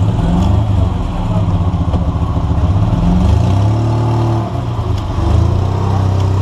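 Car engine running, its pitch rising and falling as it is revved.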